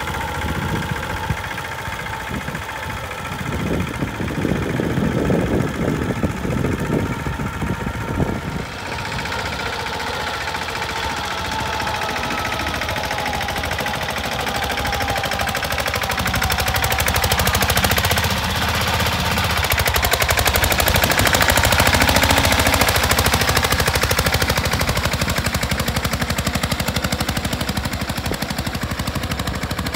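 Mahindra Yuvraj 215 mini tractor's single-cylinder diesel engine running with a rapid knocking chug while working under load, driving cage wheels through a flooded paddy field.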